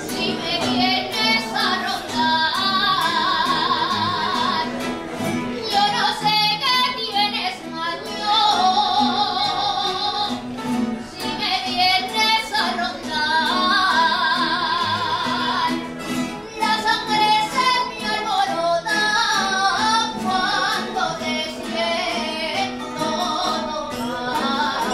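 Aragonese jota sung by a woman with a strong, wavering vibrato, accompanied by the strummed bandurrias and guitars of a rondalla.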